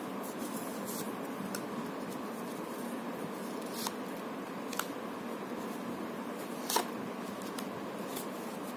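Tarot cards being handled and laid out on a table: a few short clicks and snaps, the loudest about two-thirds of the way through, over a steady room hiss.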